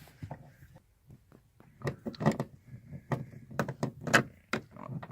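Phillips screwdriver backing out a small screw in a van's sliding-door handle: a string of irregular clicks and light knocks, the loudest a little past two seconds in and around four seconds in.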